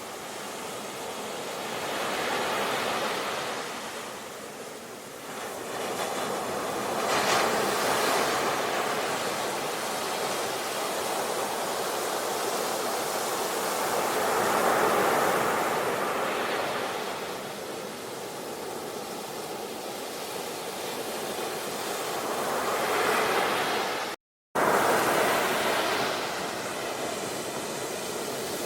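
Ocean waves breaking and washing on a shore, the surf swelling and easing every few seconds. The sound cuts out for an instant near the end, then returns.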